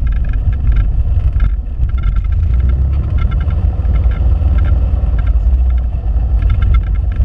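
Cessna 172P's four-cylinder Lycoming O-320 piston engine running at low power while the plane taxis, a steady low rumble with the propeller turning.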